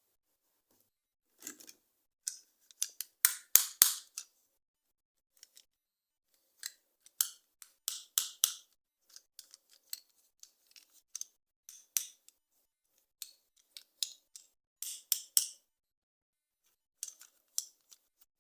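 Toy packaging being opened: irregular clusters of sharp, crisp snips and clicks with short silences between them.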